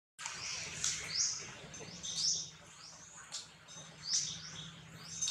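Birds chirping: short, high calls repeated irregularly, about one or two a second, over a faint steady low hum.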